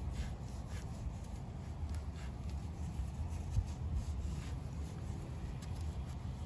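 A knife slicing through a thick prickly pear cactus pad, with faint crisp scraping and cutting sounds as the blade fillets off the green outer skin, over a low steady rumble.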